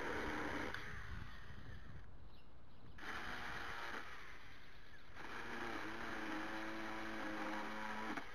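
42V cordless electric mini chainsaw run in three bursts, the last and longest ending near the end; a steady electric-motor whine over a chain rattle, the whine dropping in pitch about a second in.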